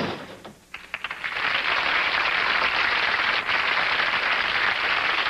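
A door slams shut. About a second later a studio audience breaks into applause that swells quickly and carries on steadily.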